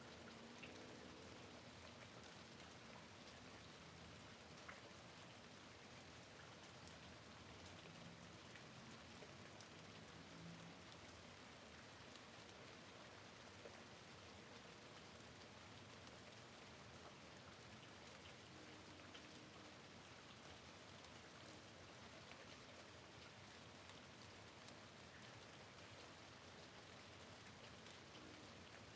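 Faint steady rain falling, with scattered light ticks of individual drops.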